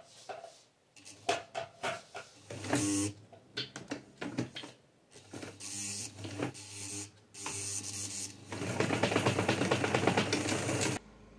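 Domestic electric sewing machine stitching in a few short stop-start runs, then a longer run of fast stitching near the end that cuts off sharply.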